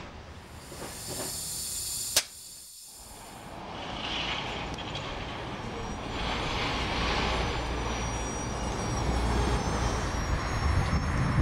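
Electric locomotive and rail noise: a sharp click about two seconds in, then hiss and low rumble building up, with a faint steady high whine from about six seconds on.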